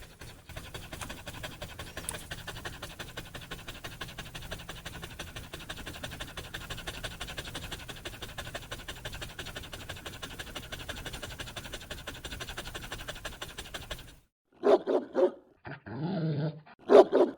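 German shepherd panting fast and steadily. Near the end it breaks off and gives a few loud barks.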